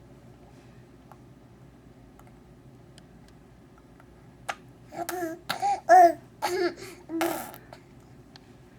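A baby making about five short voiced, babbling sounds in quick succession from about halfway in, the last one noisier and buzzier, after a few quiet seconds.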